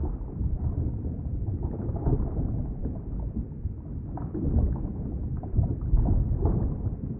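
Underwater ambience: a steady, muffled low rumble of water with faint scattered clicks.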